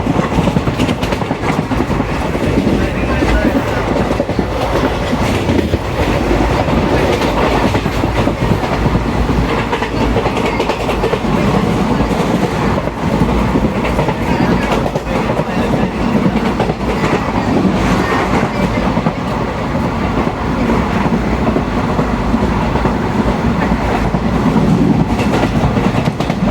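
Railway coaches running on the track: a steady, loud rolling rumble with dense wheel clatter over the rails.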